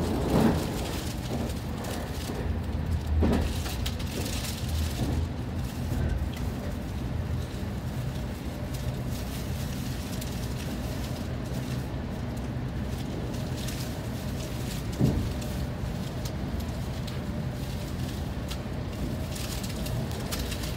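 A Meitetsu electric train running on the Nagoya Main Line, heard from inside the front car: a steady low rumble of wheels on rail, with a few brief knocks, the sharpest about 15 seconds in.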